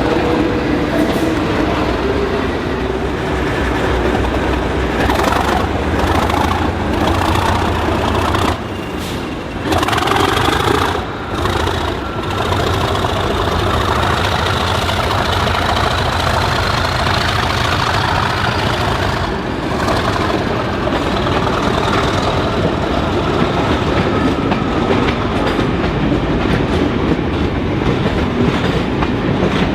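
Class 37 and Class 47 diesel locomotives working under power, a loud, steady diesel engine sound. A thin, high whistle rises in pitch through the middle, and wheels click over rail joints as the train moves.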